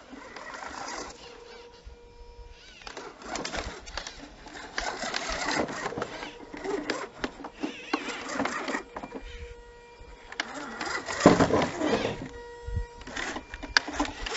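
Electric motor and gear drivetrain of an RC scale rock crawler on an Axial chassis, whirring in short stop-start bursts as it climbs over rocks, with its tyres grinding and scraping on the stone. The loudest burst comes about eleven seconds in.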